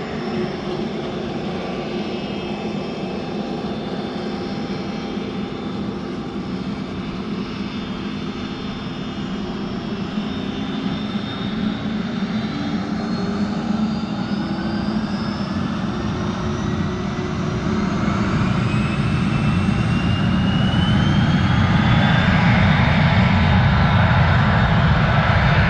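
Business jet's turbofan engines running on the runway and spooling up as it rolls for takeoff. A whine rises steadily in pitch from about ten seconds in, and the engine noise grows louder toward the end.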